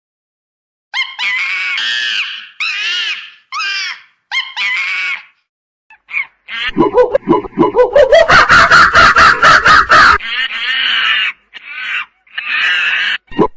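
Monkey calls: a few separate high, arching screeches, then a loud, rapid pulsing scream that rises in pitch for about three seconds, followed by more screeches near the end.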